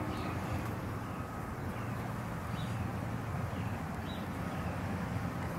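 Steady outdoor background noise with a low hum, and a few faint short chirps.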